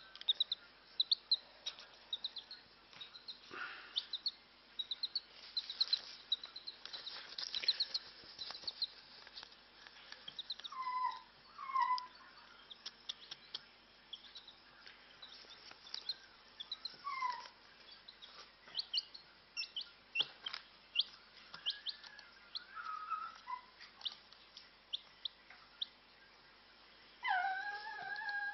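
Newly hatched chick peeping: quick series of short, high peeps, densest in the first several seconds and then more scattered. Several lower, longer calls that fall in pitch come at intervals, the loudest pair near the end.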